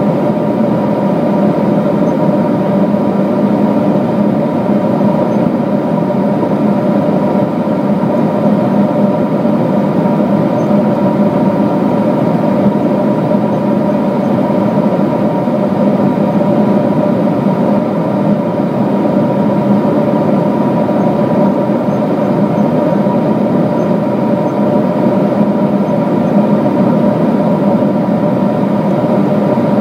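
Steady cabin noise of a Boeing 777-200 in cruise, heard inside the cabin by a window over the wing: the jet engines and rushing airflow blend into an even hum holding a few constant tones.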